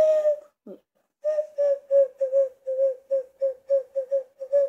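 Ocarina being played: one held note, then from about a second in a run of short, separately blown notes on nearly the same pitch, about three a second.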